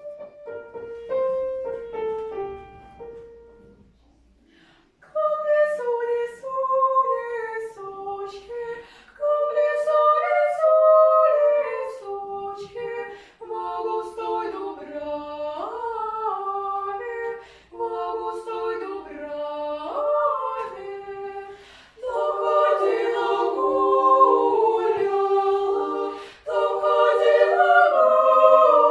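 Children's vocal ensemble singing a Russian folk song in parts, apparently unaccompanied. A short opening phrase is followed by a brief pause, and the singing grows fuller and louder from about two-thirds of the way in.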